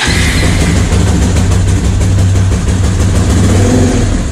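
Motorcycle engine catching suddenly and settling into a steady, loud idle: a cold start, left unrevved to warm up.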